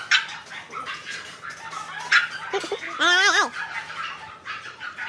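A pet animal gives a short wavering call that rises and falls in pitch, about three seconds in, just after a briefer one. A few small knocks or clicks sound earlier.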